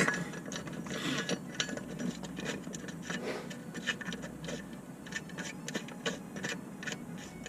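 Hand tool clicking and scraping against a kitchen faucet's metal mounting hardware as it is tightened from under the sink, in quick irregular clicks.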